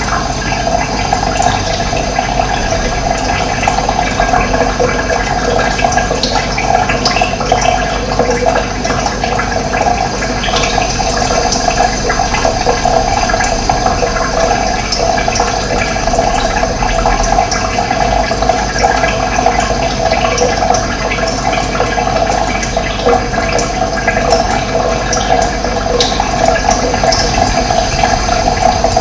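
Running water: a steady, unbroken rush of flowing water.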